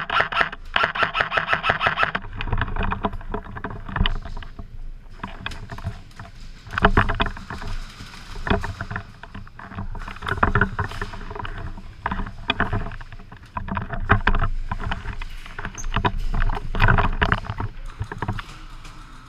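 Airsoft gun firing a rapid full-auto burst of evenly spaced clicks for about the first two seconds, followed by irregular knocks and rustling.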